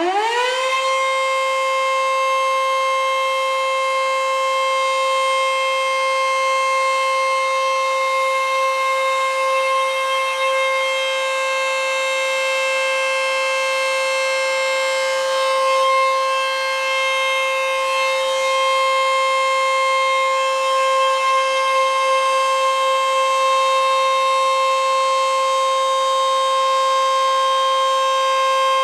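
ACA Screamer S-2 outdoor warning siren sounding a steady Alert signal: it finishes winding up to full pitch in the first second, then holds one loud, steady tone with strong overtones.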